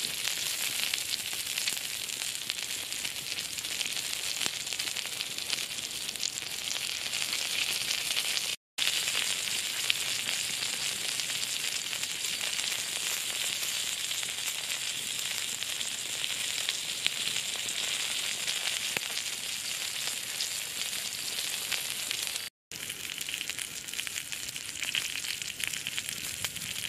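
Pork sizzling in its own fat on a hot flat stone over a wood fire: a steady crackling hiss with fine spitting. It cuts off for an instant twice.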